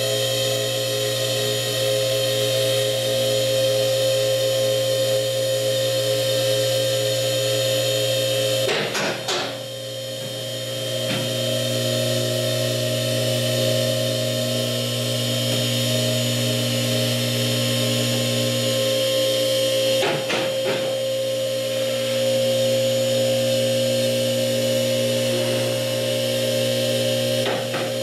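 Car lift's electric motor running steadily with a hum as it raises a car. About nine seconds in it stops briefly and restarts, and a few sharp clicks come later on.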